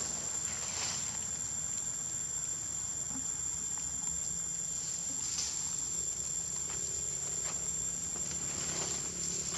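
Insects droning on one steady high pitch, with a few faint rustles in dry leaf litter.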